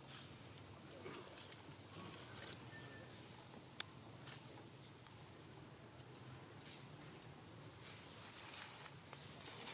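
Faint outdoor ambience: a steady high-pitched insect drone, with two sharp clicks a little before halfway through.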